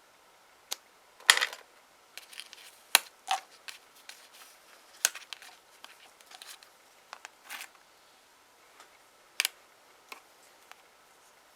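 Nail-stamping tools and polish bottles handled on a tabletop: a scatter of sharp clicks and taps with a few short scrapes, the longest about a second in.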